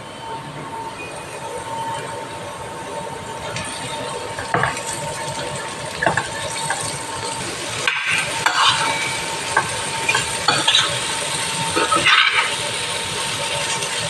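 Chopped okra sizzling in a stainless steel pan as a metal spatula stirs it, with scattered scrapes and clinks of the spatula against the pan from about four seconds in, coming thicker in the second half.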